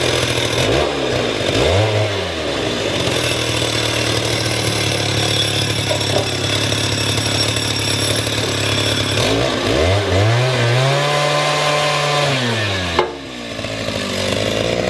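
Two-stroke chainsaw in a homemade portable chainsaw mill, ripping a log lengthwise and running steadily under load. Toward the end the engine revs up and falls back, then gives a sharp click as the saw comes out of the cut.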